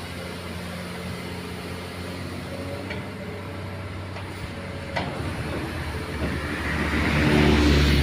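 Doosan excavator's diesel engine running steadily, with a sharp knock about five seconds in and the engine growing louder toward the end.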